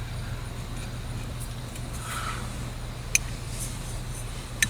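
A couple of sharp clicks of plastic shifter trim being handled and pressed into place, over a steady low hum.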